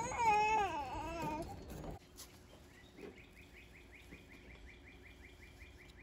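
A high, wavering vocal cry for about the first two seconds, then a bird calling in a fast, even series of short chirps, about three or four a second.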